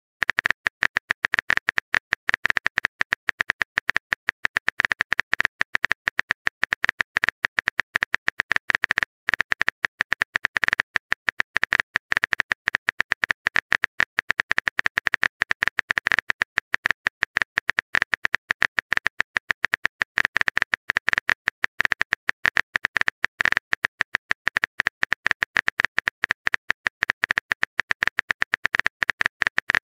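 Rapid, steady stream of on-screen keyboard typing clicks from a texting-story animation, one click per character as a long run of dots is typed, with a few brief pauses.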